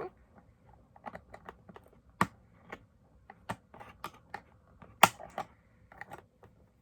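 Irregular light clicks and taps from a doll being handled and worked out of its box packaging, with two sharper knocks, about two seconds in and about five seconds in.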